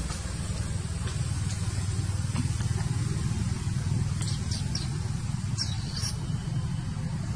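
Steady low rumble of outdoor background noise, with a few faint, short high chirps about four seconds in and again near six seconds.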